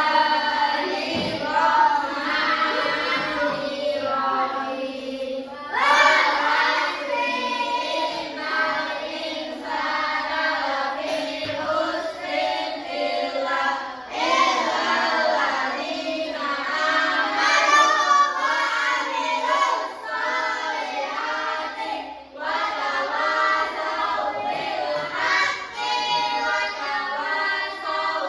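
A class of primary-school children chanting a prayer together in unison, in a sing-song recitation, with short pauses between phrases.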